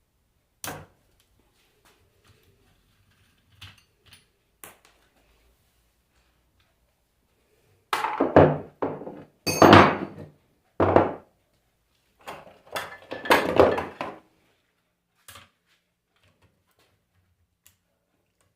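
Scattered knocks and clatter of hand tools and parts during disassembly of a Bosch 90 A alternator on a workbench, with a cluster of louder handling noises about halfway through.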